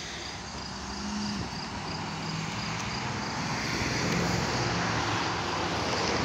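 A road vehicle approaching, its engine and tyre noise growing gradually louder.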